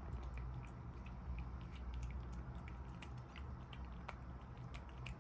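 Scottish fold kitten eating from a ceramic bowl: many small, irregular chewing and lapping clicks over a low steady hum.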